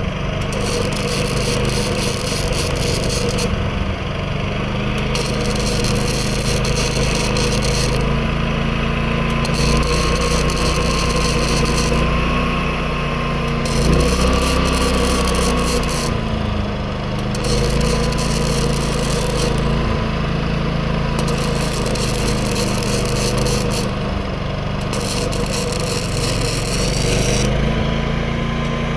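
Predator 11,500 W inverter generator's engine running under load, its pitch shifting as the welder draws power. Over it, a welding arc crackles in runs of a few seconds each, stopping and restarting about seven times.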